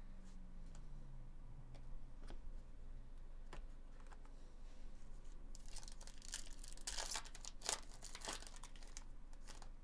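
The foil wrapper of a Bowman Chrome trading-card pack being torn open and crinkled by hand, starting a little past halfway. A few faint ticks come before it.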